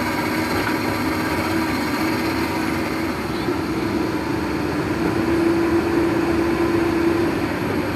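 Komatsu PC200 excavator's six-cylinder common-rail diesel engine running steadily with a constant hum, after its injectors were fully rebuilt to cure a crank-no-start fault.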